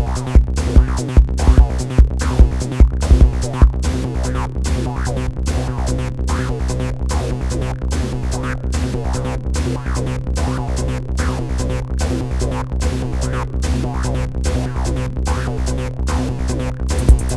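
Electronic techno-style music from a Roland TR-6S drum machine and a Moog Sound Studio synthesizer: an even drum-machine beat over held low synth drones and sequenced notes. The heavy kick drum drops out about four seconds in and comes back near the end.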